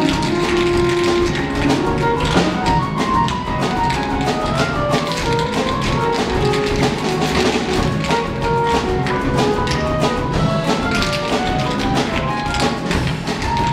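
Tap dancing over music: a quick run of taps from shoes striking the floor, on top of a melody with a beat.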